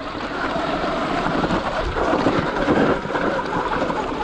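Wind buffeting the microphone over the rolling noise of a Sur Ron X electric dirt bike's tyres on loose rock. It is a steady rushing noise with no engine note.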